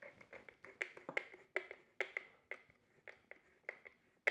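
Small, sharp clicks and taps at irregular spacing, about two or three a second, from hands handling and fastening a plastic electrical plug or connector housing around freshly wired leads.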